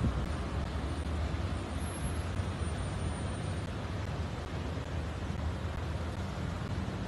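City street traffic noise: a steady low rumble of idling and slow-moving vehicles under an even hiss.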